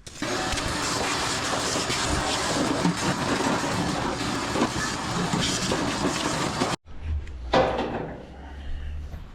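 Vacuum cleaner running with a steady rushing noise as it sucks lint out of a dryer. It cuts off abruptly about two-thirds of the way in, leaving a low hum and a few knocks.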